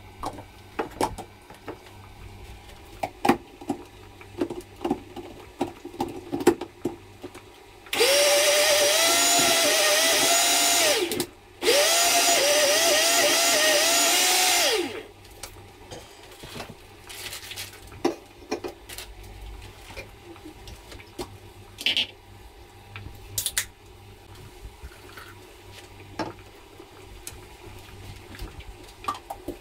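Countertop jug blender run in two bursts of about three seconds each with a short pause between. Its motor whine rises as it spins up, wavers while running, and cuts off. Light clicks and knocks of kitchen handling come before and after.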